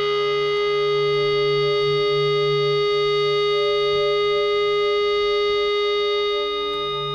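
Ambient instrumental on a nylon-string guitar played through effects: one strong held drone note with softer notes pulsing slowly around it, easing off slightly near the end.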